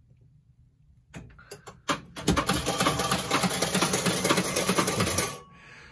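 Gottlieb Robo-War pinball machine booting with a Chicago Cubs MPU board in it: a few clicks, then about three seconds of dense, rapid mechanical clattering that cuts off suddenly. The calamity comes from the machine running on a board and ROMs meant for a different game.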